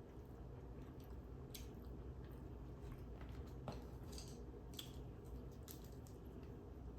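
Close-miked chewing: soft, wet mouth clicks and squishes of a person eating, scattered irregularly over a low steady hum.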